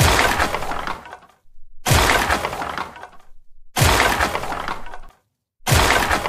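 A stock glass-shattering crash sound effect played four times in a row, about two seconds apart. Each is a sudden smash that rings out for about a second, standing for a table being thrown.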